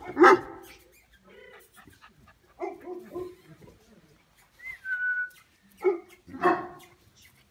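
Dog barking: a loud bark about a quarter second in and two more near the end, with softer yips around three seconds in. A short whistle sounds about five seconds in.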